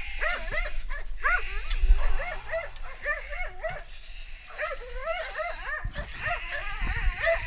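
Hunting dogs whining and yipping in a rapid, overlapping series of short rising-and-falling cries, with a low thump about two seconds in.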